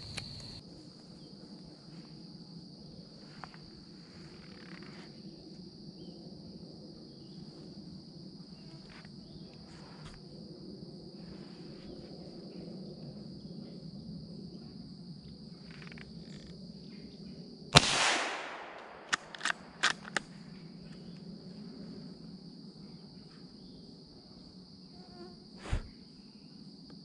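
Insects trilling steadily in the woods, cut by a single loud gunshot about two-thirds of the way through. A few short sharp clicks follow over the next couple of seconds, and there is a softer thump near the end.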